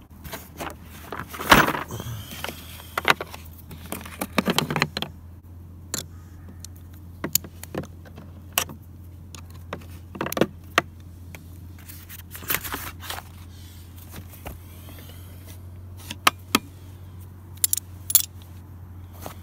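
Metal hand tools (sockets, bits, wrenches) clinking and rattling as they are handled and picked out of a plastic socket-set case: irregular sharp clicks and clatters, the loudest about one and a half seconds in, over a steady low hum.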